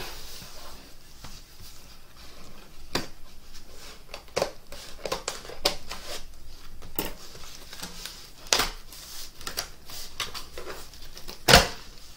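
Scissors slitting the packing tape along a cardboard shipping box, an irregular run of clicks, scrapes and cardboard rustles as the box is handled and its flaps are pulled open. A sharp knock near the end is the loudest sound.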